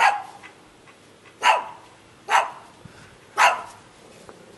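Small fluffy dog barking four times, sharp high barks about a second apart.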